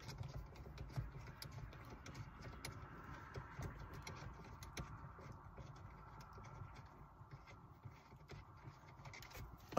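Faint, scattered small clicks and taps from hands working the car's plastic shifter trim pieces, as the shift boot assembly is unclipped from the shifter.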